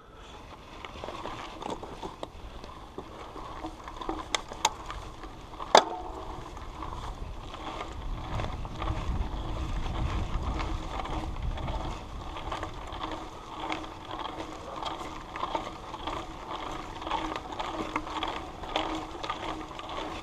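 Mountain bike ridden over a rough dirt trail: tyres rolling and the bike rattling and clicking over bumps, with wind rumbling on the microphone, strongest around the middle.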